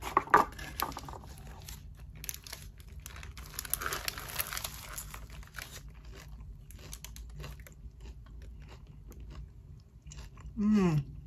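A person biting into and chewing a burger close to the microphone, with wet crunching of lettuce and scattered small clicks. Near the end comes a short falling vocal sound.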